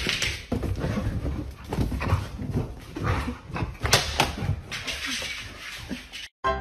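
Two dogs play-fighting on a wooden floor: irregular scuffling and thumping of paws and bodies, with dog vocal noises and one sharp knock about four seconds in.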